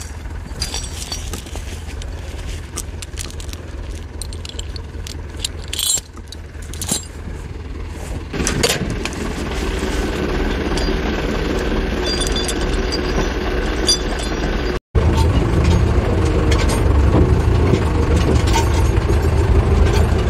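Zetor 4011 tractor's four-cylinder diesel engine running steadily, with scattered metal clinks and rattles in the first half, typical of winch chains and chokers being handled. About halfway through the engine grows louder and stays so.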